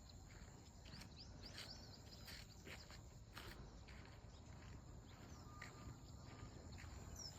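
Faint outdoor nature ambience: a steady high-pitched insect drone, a few faint bird chirps, and scattered soft clicks.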